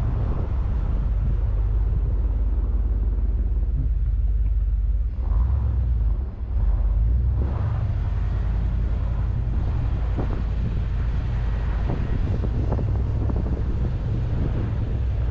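Steady low rumble of a Ram pickup truck heard from inside its cab, dipping briefly about five to six seconds in, with a few faint taps later on.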